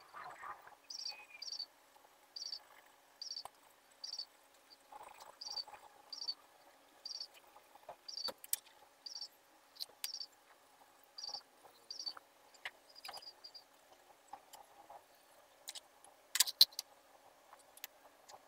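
An insect chirping in short double chirps, repeating about once a second, with a few sharp clicks near the end.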